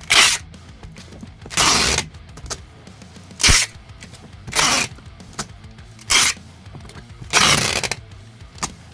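About seven short, loud bursts of rustling noise from packing materials being handled, spaced irregularly over a steady background music track.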